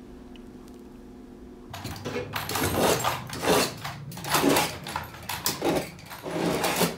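A faint steady hum, then from about two seconds in a busy, irregular run of knocks, clatter and scraping from workmen handling kitchen fittings during a renovation.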